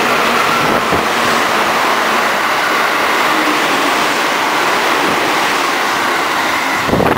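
Electric commuter train running past close along a station platform at speed: a loud, steady rushing noise of the train going by.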